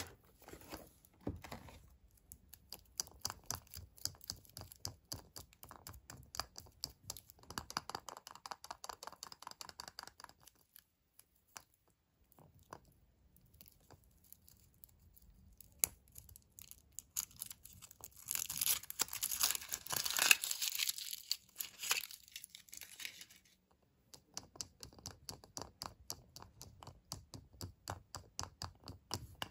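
Thin foil wrapper of a Kinder Surprise chocolate egg handled and peeled off by hand: crinkling with many small ticks and fingertip taps, loudest and densest about two-thirds of the way through as the foil is pulled away.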